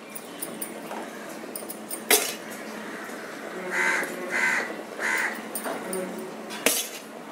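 A steel ladle clinks twice against the rim of an aluminium pressure cooker while cooked rice is spread in a layer over chicken. Between the clinks an animal calls three times in quick succession.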